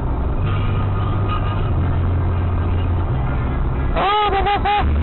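Steady engine and road hum inside a car's cabin at motorway speed, about 100 to 116 km/h. About four seconds in, a short voice-like exclamation of three quick syllables cuts through.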